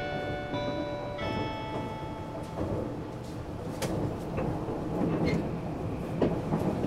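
Onboard announcement chime of an E257 series express: a short electronic melody of a few held notes stepping in pitch, ending about two and a half seconds in. Under it and after it, the steady rumble of the train running, with a few light clicks, as heard inside the car.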